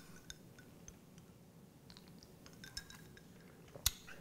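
A quiet room with a few faint clinks and ticks from a drinking glass being handled, and one sharper click near the end.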